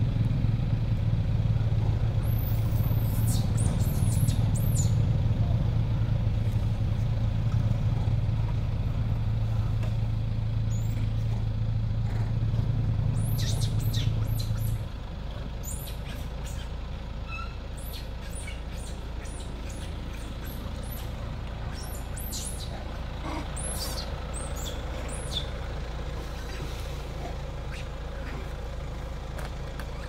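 A motor running nearby with a steady low hum that cuts off suddenly about halfway through, while short high chirps come and go, most of them in the second half.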